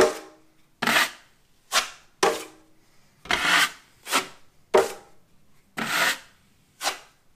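A wide drywall knife striking the wall and scraping joint compound across a drywall patch in quick strokes, about nine in all, each starting with a sharp click and trailing off in a short scrape.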